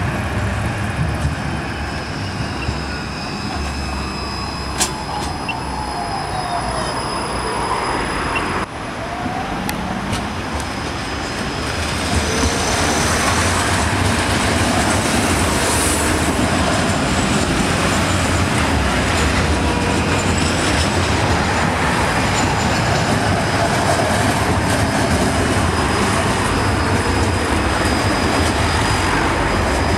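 Trams running on street track, with the running noise of their wheels on the rails and high, thin wheel squeal. The sound breaks off abruptly about a third of the way in, then comes back louder and steady.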